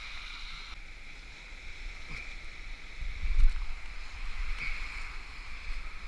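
Wind rumbling on the microphone over the wash of surf on a beach, swelling to its loudest about three seconds in, with a steady thin high whine underneath.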